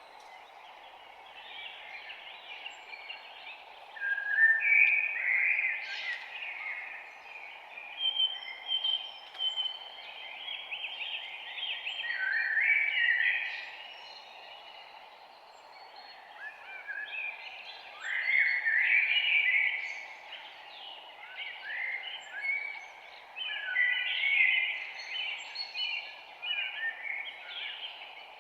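Birds chirping and singing in quick, busy phrases that come and go, over a steady low hiss.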